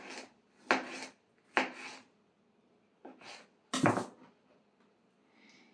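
Kitchen knife chopping a tomato on a cutting board: several separate knocks of the blade on the board, a second or so apart, the loudest a little past the middle.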